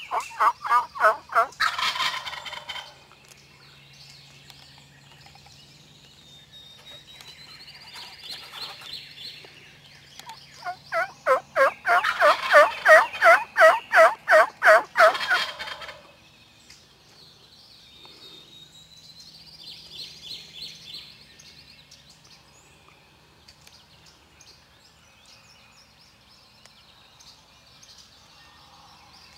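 Wild turkey calling: a loud burst of quick rattling notes at the start, then a longer, louder series of about a dozen evenly spaced notes from about ten to sixteen seconds in. Small songbirds sing faintly between.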